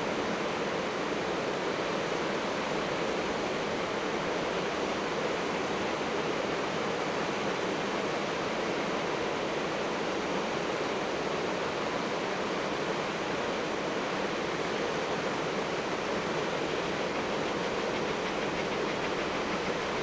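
Steady rushing of river water, an even hiss that neither rises nor falls.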